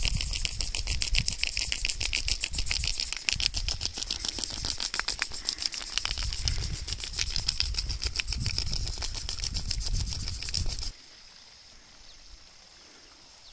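Impact sprinklers ticking in a rapid, even rhythm as they spray, with wind rumbling on the microphone. The sprinklers run at reduced water pressure because the solar pump slows down under cloud. The ticking cuts off abruptly near the end, leaving faint outdoor background.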